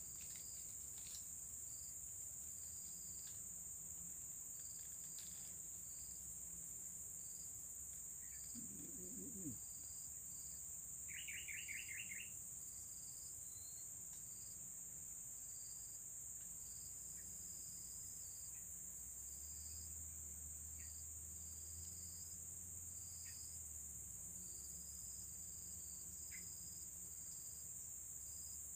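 Steady insect chorus: a continuous high cricket drone with a short chirp repeating over it. A quick bird trill of several notes comes about 11 seconds in, just after a brief low sound.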